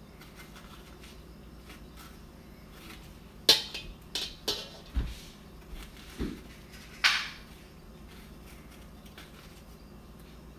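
A metal spoon scraping the seeds and pulp out of a halved zucchini and knocking against a stainless steel bowl. There is a cluster of short, sharp scrapes and clicks from about three and a half seconds in, the loudest at the start of the cluster. A longer scrape comes about three seconds later.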